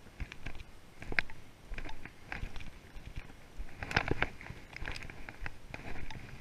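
Footsteps walking over a mossy forest floor littered with fallen sticks: irregular short crunches and cracks underfoot.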